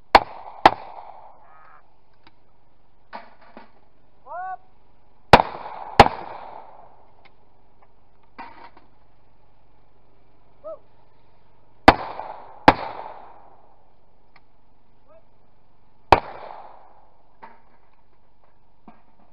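Shotgun shots at clay targets, mostly fired as doubles: two quick shots about a second in, another pair about five seconds in, a third pair near twelve seconds, and a single shot around sixteen seconds, each followed by a short echoing tail.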